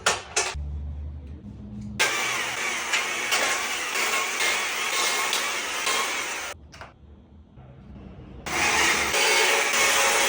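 Chainsaw running and cutting into wood, its pitch wavering under load. It runs in two stretches with a quieter gap in between.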